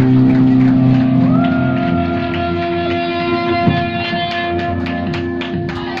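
Live black metal band: distorted electric guitars holding sustained notes that slowly fade, with a note sliding up into a higher held pitch about a second in. A few sharp taps come near the end.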